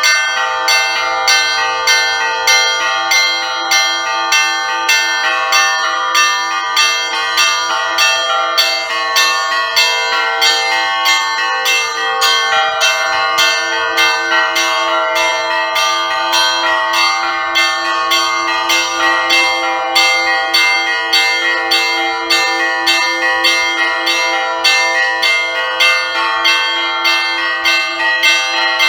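Russian Orthodox church bells rung together in the festive Easter peal: small bells struck in rapid, continuous patterns over the regular strokes of a larger, lower bell.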